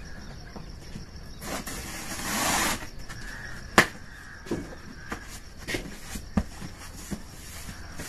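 Cardboard carton being torn open by hand: a rustling tear lasting about a second, beginning about a second and a half in, then a sharp knock a little later and lighter scrapes and taps of the flaps being pulled back.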